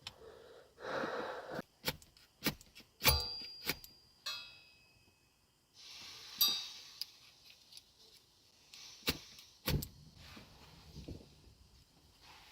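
Drink-making gear being handled: a series of clicks and knocks, with a few bright metallic clinks that ring briefly, the loudest about three seconds in.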